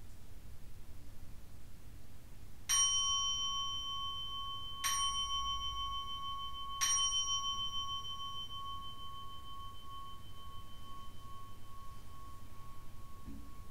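Small Buddhist bowl bell struck three times with a striker, about two seconds apart. Each strike rings on with a clear tone that overlaps the next, and the last fades slowly over several seconds.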